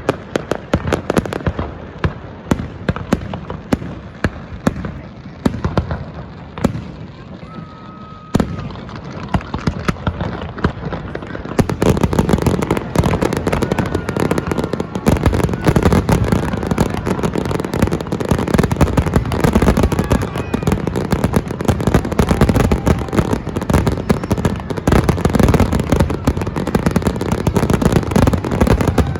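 Fireworks display: a steady run of bangs and crackles that turns into a much denser, louder barrage about twelve seconds in.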